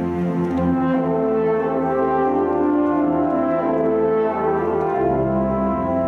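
Chamber orchestra playing held, overlapping notes whose pitches slowly shift, with a low note entering about five seconds in.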